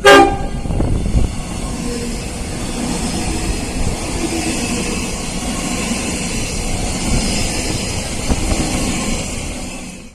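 Train horn sounding a loud, sudden blast at the start, followed by a passing train's steady rail and engine noise with the horn's chord faintly in it. The noise fades and drops off near the end.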